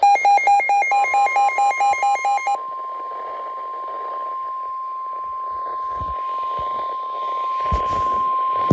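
A receiver's electronic alert beeping in a fast, even pattern for about two and a half seconds, as a steady single-pitch warning alarm tone of NOAA Weather Radio begins about a second in and holds over faint radio static. It is the attention signal that comes before a new flash flood warning is read.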